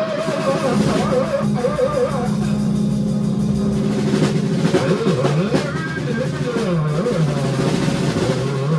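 A live band playing loud in a small room: guitar, bass and drum kit, with a lead line bending up and down in pitch.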